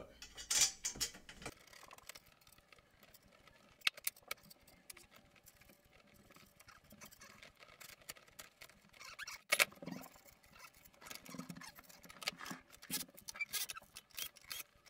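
Quiet, irregular metallic clicks and clinks of screws being set by hand into a chrome tubular-steel bar stool frame and its footrest ring, the parts tapping against one another as they are handled.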